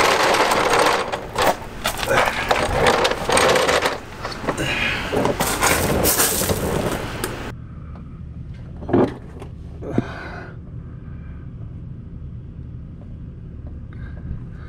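Plastic mechanic's creeper rolling and scraping over a concrete driveway, with clattering knocks, as a person gets onto it and slides under a vehicle. It then turns quieter, with two sharp knocks about a second apart.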